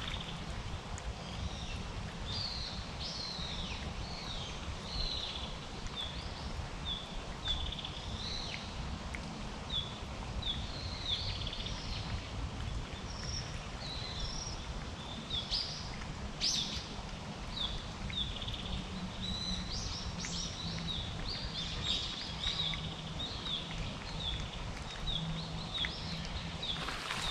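Small birds chirping: short, high, falling notes repeated over and over, over a steady low outdoor rumble, with an occasional sharp click.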